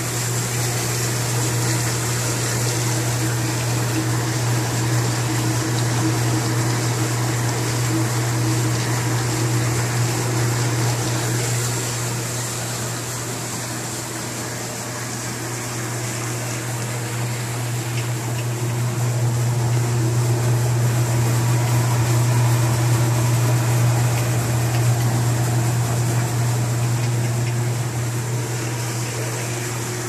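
Champion UH200B commercial undercounter dishwasher running its cycle: a steady low pump hum with water spraying inside the closed cabinet.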